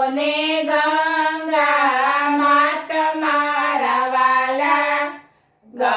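Women singing a Gujarati devotional bhajan together without instruments, in long drawn-out notes. The singing breaks off about five seconds in and starts again just before the end.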